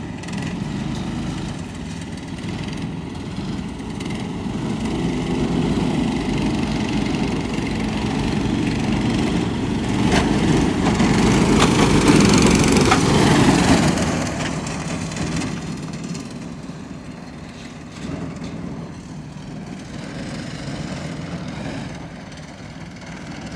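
Several small go-kart engines running, growing louder as the karts pull out and pass close by about twelve seconds in, then fading as they move off around the track.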